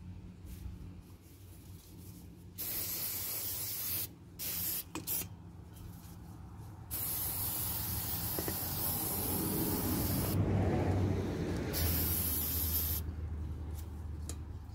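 Aerosol brake cleaner spraying onto a brake rotor, hissing: a burst about two and a half seconds in, two short squirts, then one long spray of about six seconds.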